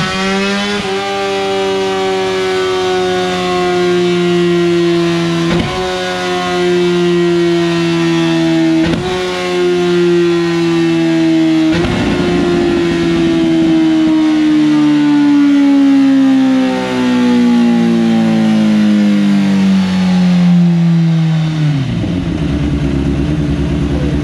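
Kawasaki ZX-10RR's inline-four engine running at high revs on a chassis dyno through an Arrow full-titanium race exhaust, with three brief gear changes cutting into the note from the quickshifter and auto-blipper being tuned. From about halfway the revs fall steadily, and near the end the engine drops to a fast idle.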